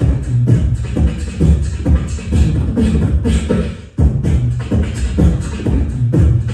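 Live solo beatboxing into a cupped handheld microphone, amplified: a fast, steady groove of deep bass kicks with sharp snare and hi-hat clicks. The beat fades out briefly just before four seconds in, then comes straight back.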